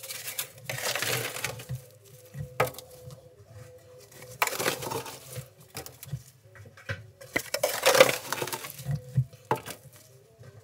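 Powdered laundry detergent with scent beads being poured onto a wet load in a front-loading washer drum. It comes in several gritty, hissing pours about a second long, with scattered sharp clicks, over a faint steady hum.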